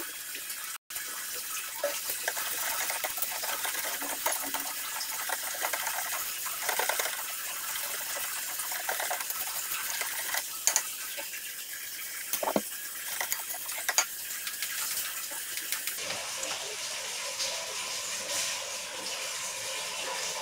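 Wire whisk stirring thick chocolate syrup in a stainless steel wok, a wet stirring sound with occasional clicks of the whisk against the metal, over a steady hiss.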